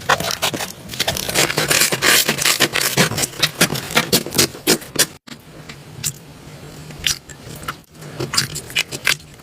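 Slime being squished and pressed by hand, with rapid sticky clicks and crackling pops. The sound breaks off briefly about five seconds in and again near eight seconds.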